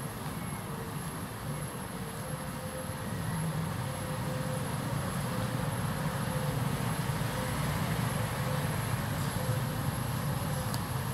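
Steady low engine rumble, a little louder from about three seconds in, with a faint steady high whine above it.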